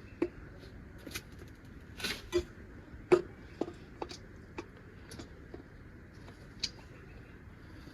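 Metal bicycle parts being handled and fitted during assembly: scattered sharp clicks and clinks, about a dozen, the loudest a little after three seconds in.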